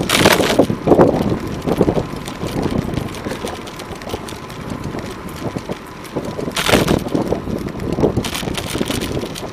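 Wind rushing over the microphone of a camera on a moving bicycle, over the sound of car traffic alongside. There are two louder rushes of noise, one right at the start and one about two-thirds through.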